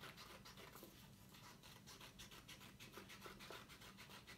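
Faint snipping of scissors cutting a heart shape out of construction paper: a quick, even run of small cuts.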